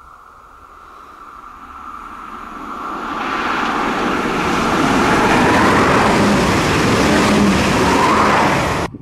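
SNCF Régiolis (Alstom Coradia Liner) bi-mode train running on diesel, approaching and passing close by at speed. Its engine and wheel noise grows steadily louder, stays loudest for the last four seconds or so, then cuts off suddenly.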